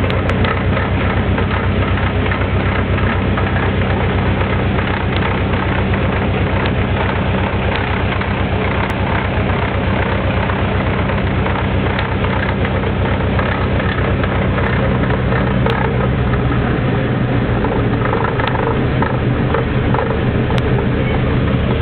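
Subaru Forester SF5 manual transmission in 5th gear at about 40 km/h, with the engine running steadily under a dense, fast rattle, which the owner takes for gear backlash noise.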